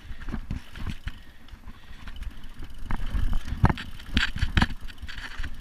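Mountain bike rolling down a rocky trail: a steady rumble of tyres on dirt and stone with the bike rattling, and a run of sharp knocks in the second half as it drops over rocks.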